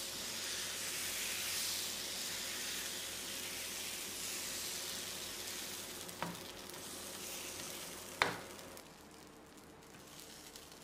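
Thin dosa batter sizzling on a hot griddle, a steady hiss that fades over the last two seconds, with two light clicks about six and eight seconds in.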